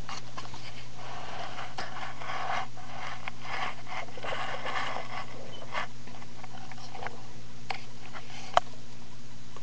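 Hamsters scrabbling and scratching about on a plastic toy fire truck: rustling, strongest in the first half, with scattered light clicks and one sharper click near the end, over a steady low hum.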